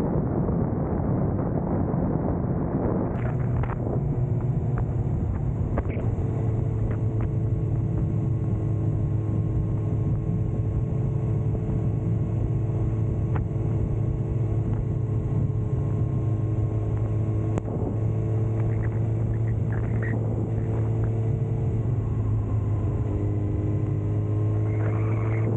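Suzuki GSX-R 600's inline-four engine running at a steady cruise, holding nearly constant revs, under a continuous rush of wind and road noise.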